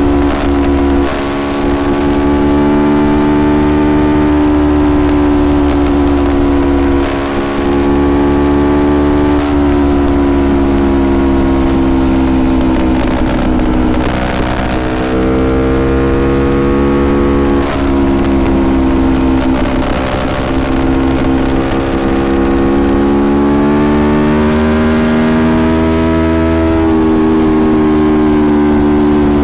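Aprilia Tuono Factory motorcycle engine under way, its pitch climbing under throttle and dropping at gear changes and roll-offs several times.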